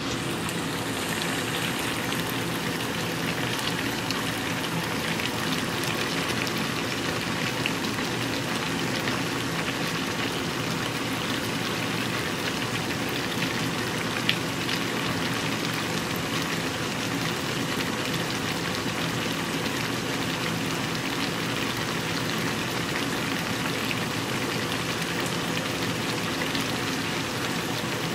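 Adobong chicken with potatoes cooking down in a pot: a steady sizzling and bubbling hiss with fine crackles.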